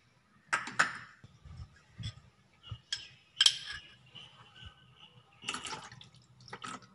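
Kitchenware clinking and knocking against a steel saucepan a few times, then the milk and cornflour mixture splashing as it is poured from a jug into the pan of hot milk near the end.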